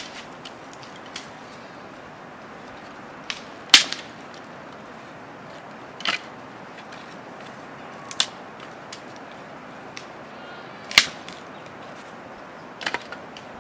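Dry sticks snapping with sharp cracks, about five of them a few seconds apart, as they are broken by hand for firewood.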